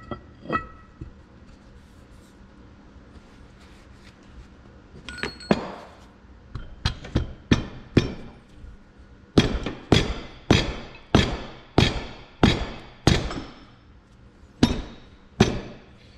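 Hammer tapping a freshly O-ringed brake piston down into the cast-iron brake housing of an Oliver 1855 tractor: about twenty sharp blows with a short metallic ring, in uneven runs starting about five seconds in, the last two near the end. Two light metal clinks come at the very start.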